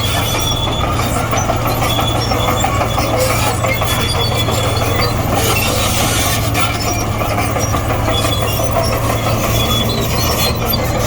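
Komatsu D58E crawler bulldozer working: its diesel engine runs steadily under load while the steel tracks clatter and squeal.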